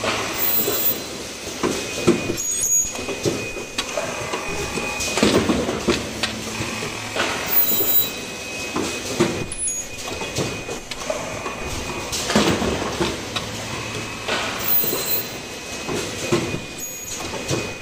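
Automatic cup-mask production line running: a steady mechanical clatter from the chain conveyor and mask fixtures, with clacks and short air hisses from the pneumatic actuators every second or two, and a thin high whine that comes and goes.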